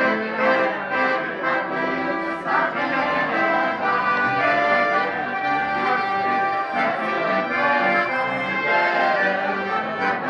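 Accordion playing a tune live, with held chords and melody notes changing throughout.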